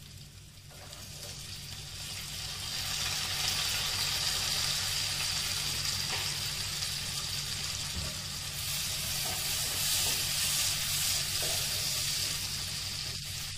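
Finely chopped onions sizzling in hot butter and oil with whole spices. The sizzle builds over the first few seconds after the onions go in, then holds steady.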